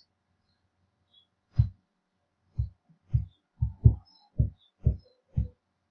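A series of eight low, dull thumps at uneven intervals, the first about a second and a half in, the rest coming closer together toward the end.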